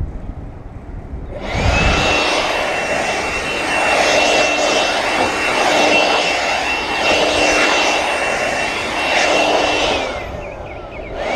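A small high-speed electric motor spinning up about a second and a half in, running with a steady high whine and loud rushing air, then winding down near the end and spinning up again at the very end.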